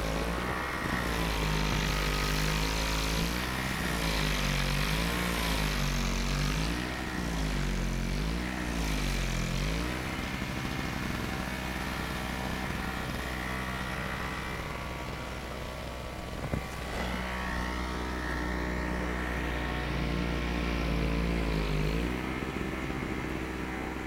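An engine revving up and down over and over, about once a second, for the first ten seconds, then running at a steadier pitch, with a single sharp click a little after halfway.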